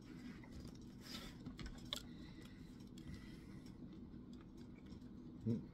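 Quiet handling noises of a cardboard granola-bar box being picked up and turned: a brief rustle about a second in and a few light clicks, over a low steady hum.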